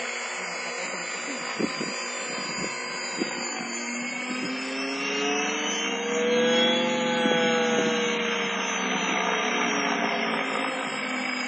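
Eagle 3 EP electric radio-controlled model in flight, its motor whine rising in pitch and getting louder to a peak about halfway through, then falling away as it passes.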